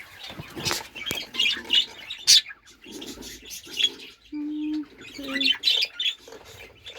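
Budgies chattering and chirping in many short, high calls, with a few sharp clicks and knocks from the cages and nest boxes being handled, the loudest about two seconds in.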